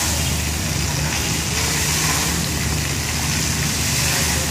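Fountain's tall water jet rushing up and splashing back into its basin: a steady hiss of falling water, over a low steady hum.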